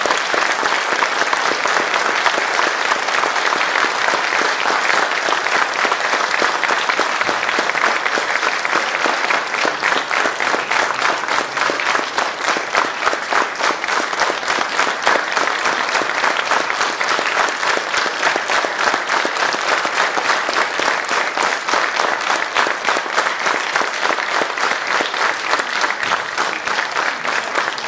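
A large theatre audience applauding loudly: dense, continuous clapping from many hands, easing off slightly near the end.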